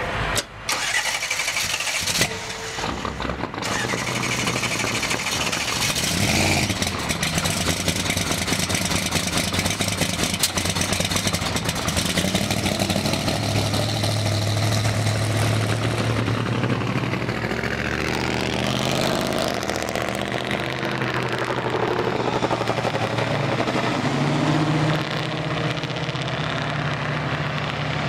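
A car engine running as the car drives off and travels on the road, with a few knocks near the start and its pitch climbing toward the end as it gathers speed.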